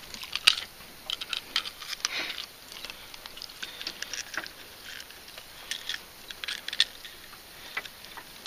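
Scattered clicks and scratchy rustles of unhooking a white bass in a landing net: metal forceps and the hard plastic topwater popper lure with its hooks clicking, the net rustling. The sharpest clicks come about half a second in and again near the end.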